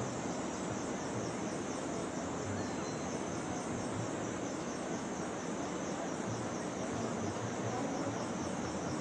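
Steady busy-street ambience: a constant mix of traffic and crowd noise, with no single event standing out.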